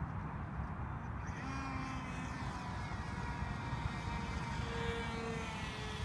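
Electric motor and propeller of an AXN radio-controlled foam plane whining in flight, coming in about a second in and shifting in pitch as the plane flies around, under heavy wind rumble on the microphone.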